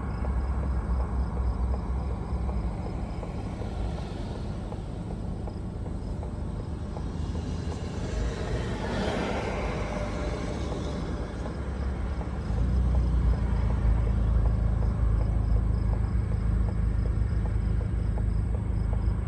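Steady low rumble of a car driving on the road, growing louder about twelve seconds in. Around nine seconds in, another vehicle passes with a swell of noise that rises and fades.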